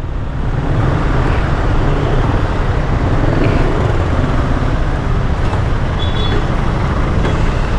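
Kymco Xciting S400i scooter's single-cylinder engine running steadily at low speed in slow, congested street traffic, mixed with the noise of the surrounding vehicles.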